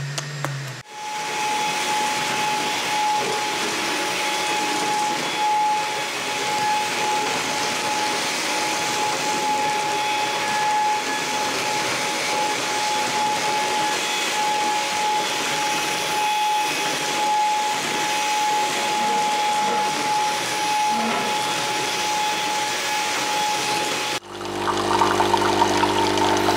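Cordless stick vacuum cleaner running on a tiled floor: a steady motor noise with a constant high whine, starting about a second in. Near the end it cuts to an automatic espresso machine's pump humming as it dispenses coffee into a glass.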